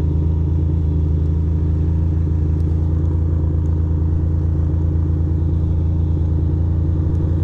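2006 Ducati Monster 620's air-cooled L-twin engine running steadily at low revs while riding slowly, a low, even drone with no revving.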